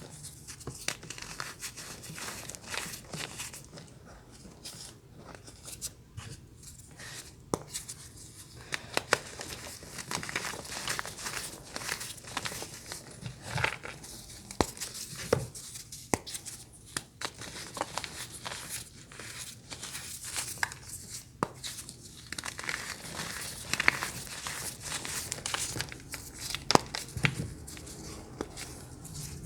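Brittle crunchy bars being crushed and crumbled up close: a dense, continuous run of sharp cracks, crinkles and snaps, with a few louder snaps near the end.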